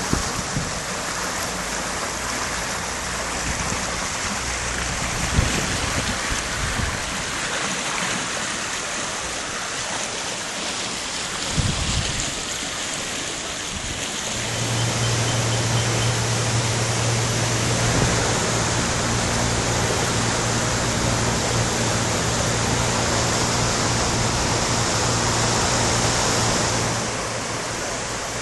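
Water of Cruden in flood, rushing steadily. About halfway through, a steady low hum joins it and stops shortly before the end.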